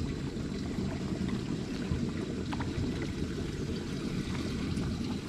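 Steady low rumble on a body-worn camera's microphone while a bass is fought on an ultralight rod, with a few faint clicks about two seconds in.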